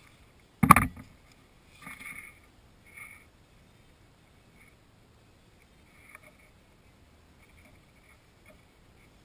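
A single loud thump a little under a second in as hand tools are set down on a wooden deck, followed by a few faint clicks and rustles of hands working at a motorcycle's front brake caliper.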